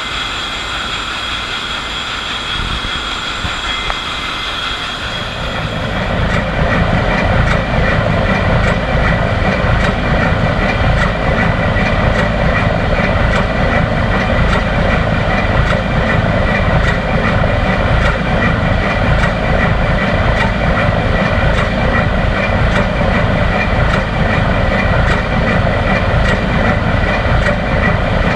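Large B&W two-stroke marine main engine running at about 51 rpm: a loud, steady mechanical din with regular ticking. A high, steady whine from the turbocharger near the start gives way about six seconds in to louder, deeper engine running noise.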